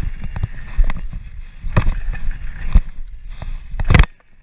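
Mountain bike rolling fast over packed dirt: a steady low rumble of wind and tyre noise on the camera's mic, with sharp knocks and rattles as the bike hits bumps, the loudest near the end, after which the sound briefly drops out.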